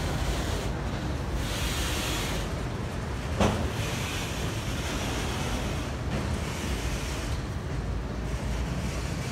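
Freight train of autorack cars rolling past: a steady low rumble of wheels on rail, with one sharp clack about three and a half seconds in.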